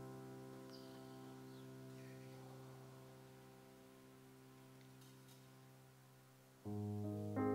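Electric keyboard holding a soft sustained chord that slowly fades away, then a new, louder chord struck about six and a half seconds in.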